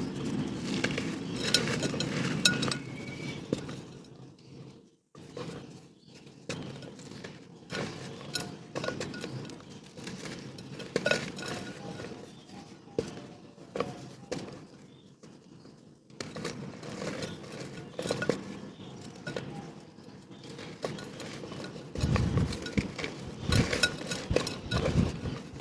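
Dried mud shapes being crushed and crumbled by hand: irregular crunching and crackling, with hard pieces clinking together. A brief break about five seconds in, and heavier crunching near the end.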